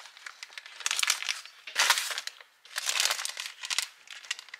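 Plastic bakery bag crinkling as it is handled and snipped with kitchen scissors. It comes in several rustling bursts, the loudest a little under two seconds in, with a brief lull just after.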